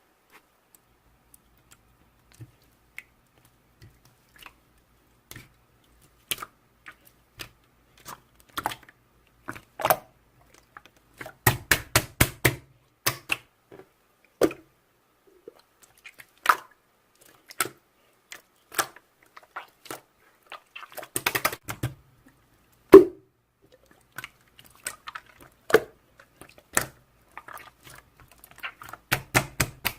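Irregular sharp clicks and taps, mostly a second or so apart with a few quick flurries, like typing on keys; one louder knock about two-thirds of the way through.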